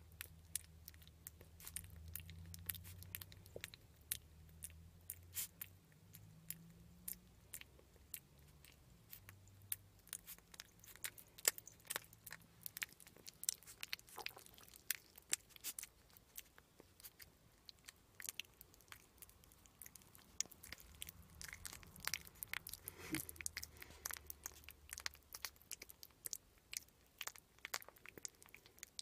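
A young red fox kit chewing soft banana: many quick, irregular wet clicks of its mouth and teeth. A low hum runs underneath for parts of it.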